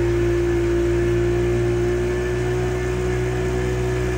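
Motorboat engine running steadily at towing speed, a constant whine over a low drone, with water rushing.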